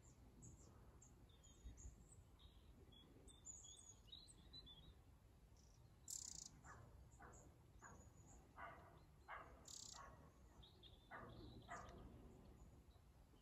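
Quiet riverbank ambience with faint, scattered small-bird chirps and song. In the second half come a few short, lower calls and two brief hissy bursts.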